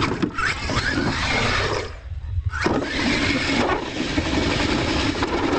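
Radio-controlled monster truck's motor revving, its pitch sweeping up, with dirt noise from the tyres. The throttle drops off briefly about two seconds in, then the motor revs again.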